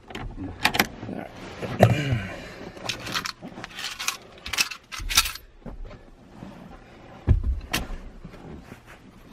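Irregular metallic clicks, clinks and a couple of clunks from hand work tightening the nuts on a 1990 Honda Accord's neutral safety switch by the gear selector, with a jangle like car keys.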